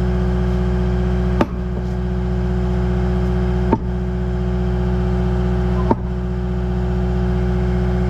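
Diesel engine of a CAT compact track loader running steadily, heard from inside its cab, with a steady hum above the engine note. Three brief clicks come about two seconds apart.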